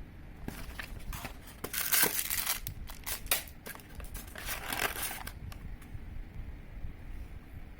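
Crinkling and rustling of handled material in a run of scratchy bursts lasting about five seconds, with a couple of faint clicks after it stops.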